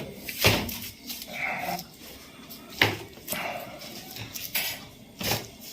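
Joints cracking during chiropractic adjustment: three sharp cracks about two and a half seconds apart, each followed by a short vocal sound.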